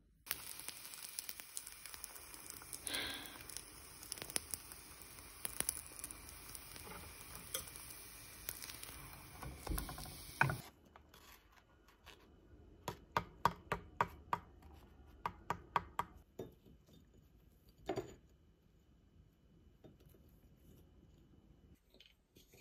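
A steady hiss with scattered clicks and handling noises for about ten seconds, cutting off suddenly. Then a knife cuts through burnt, hard bread on a wooden cutting board: a quick run of sharp crunching cuts, with one louder cut a little later.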